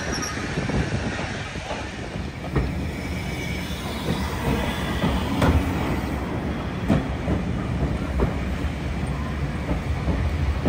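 Ride noise of a heritage railway carriage under way, heard from on board: a steady rumble of wheels on rails with a few irregular clicks as the wheels pass over rail joints.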